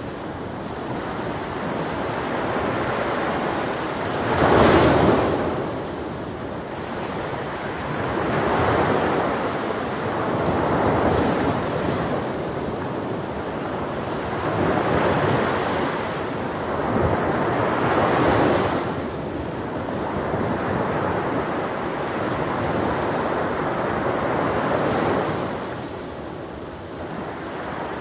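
Ocean waves breaking on a beach, the surf swelling and washing in every few seconds, the loudest break about five seconds in.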